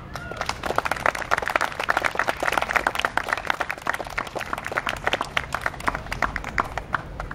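Audience applauding at the end of a concert band piece, with many separate hand claps heard; the clapping thins out near the end.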